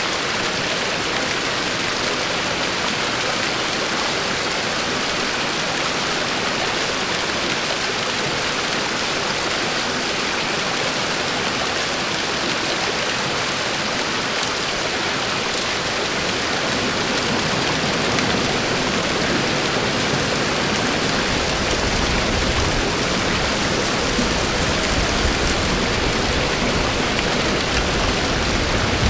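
Rushing water of small mountain waterfalls and a stream, a steady hiss of falling and running water. About two-thirds of the way through it turns deeper and a little louder as a waterfall is heard close by.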